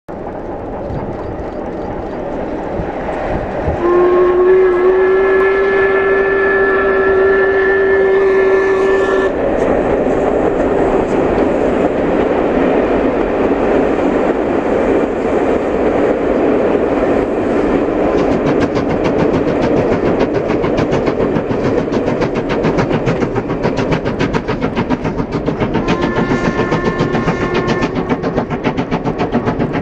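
Steam locomotive hauling a train across a viaduct: a rumble that builds, a long steam whistle blast of about five seconds starting about four seconds in, then fast, even exhaust chuffing growing clearer, and a second, shorter whistle blast near the end.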